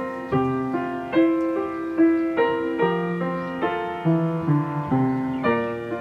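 Background piano music: a gentle melody of struck notes over soft chords, a new note roughly every half second, each fading as the next begins.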